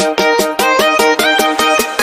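Background music: a quick, even run of short pitched notes, about six a second, stepping up and down in pitch.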